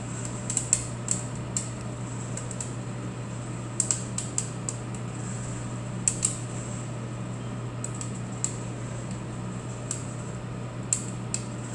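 Coffee beans crackling in the second crack inside an ASRw-01 hot-air sample roaster: sharp snaps at irregular intervals, sometimes two or three close together. Under them the roaster runs with a steady hum and hiss. The roast is close to dense second crack.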